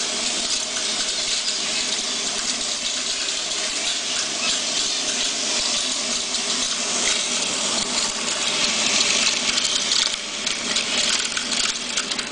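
A birdseed-cleaning machine's fan running with a steady hum while dirty birdseed pours into its hopper and trickles down through the plastic chambers, a dense rushing hiss of grains. The fan's air stream is winnowing the husks off into a separate chamber.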